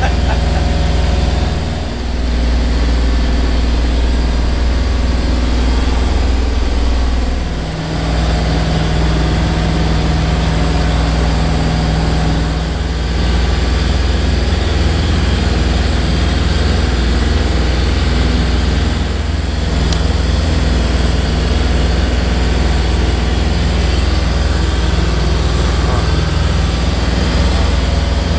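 A fishing boat's engine running steadily while under way, a constant low hum with a rushing hiss over it, dipping briefly twice in the first several seconds.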